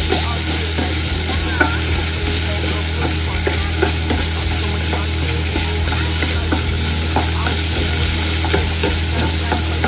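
Baby carrots sizzling steadily in olive oil in a frying pan, stirred with a wooden spatula that scrapes and taps against the pan in small irregular knocks, with a steady low hum underneath.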